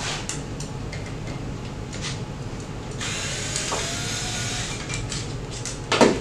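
Small clicks and a stretch of scraping, metal against metal, as a cap is worked out of an opening in a sheet-metal machine panel with a hand tool. A sharp knock near the end.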